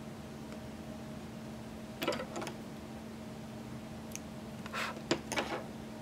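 A single strand of cotton embroidery floss and its needle drawn through linen fabric: two brief swishes of thread passing through the cloth, about two seconds in and again near the end, over a steady low hum.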